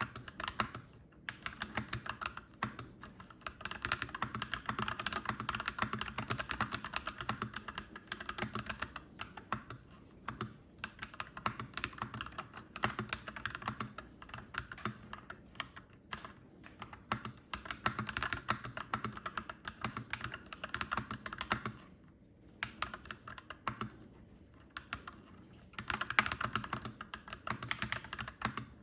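Clacky mechanical keyboard typing: quick runs of keystrokes broken by short pauses, the longest a few seconds near three-quarters of the way through.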